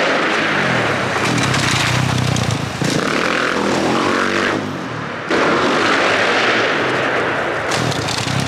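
Dirt bike engine running hard under throttle, loud and close. About halfway through it drops off briefly, then picks up again.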